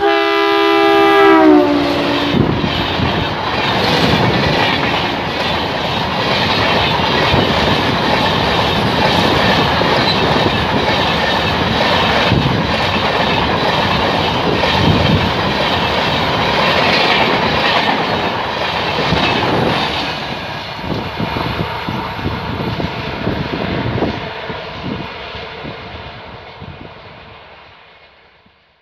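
Indian Railways diesel passenger train passing at speed: the locomotive's horn sounds as it arrives, its pitch dropping as it goes by. Then the coaches rush past with a steady rumble and clickety-clack of wheels over the rail joints, which fades out as the train recedes.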